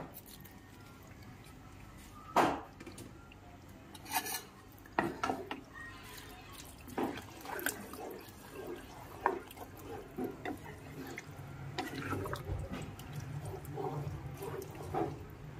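Boiled penne tipped from a colander into a pan of soup and stirred in with a spatula: wet sloshing and stirring with scattered knocks and scrapes against the pan, the sharpest knock about two seconds in.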